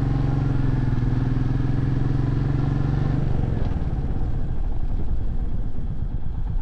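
Royal Enfield Meteor 350's single-cylinder engine running steadily on light throttle. About halfway through the throttle is closed and the engine drops to a slower, uneven low-rev beat as the bike rolls toward a parking lot.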